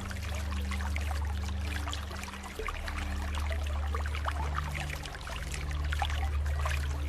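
Running water trickling and splashing steadily, over soft, low sustained music notes that change pitch every couple of seconds.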